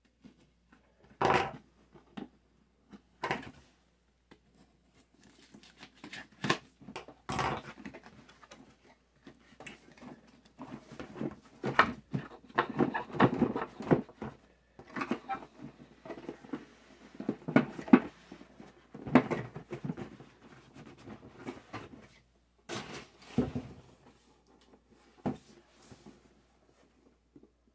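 Cardboard shipping box being slit open with a knife and unpacked: irregular knocks, scrapes and rustles of cardboard flaps and tape, busiest in the middle.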